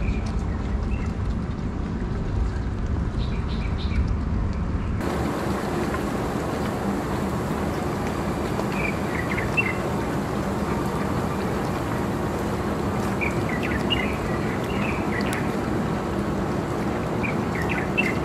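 Steady outdoor background noise with scattered short bird chirps. A heavy low rumble in the first five seconds drops away suddenly, leaving a wider, even hiss.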